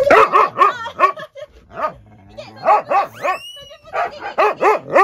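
A dog barking and yipping in a quick run of short, high, excited calls, with a brief pause in the middle.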